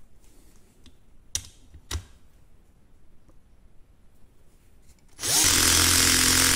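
Two light clicks, then about five seconds in a Bosch GSR 120-LI 12 V cordless drill-driver starts running steadily in first gear, driving a large screw into a wooden block with its clutch set at 15.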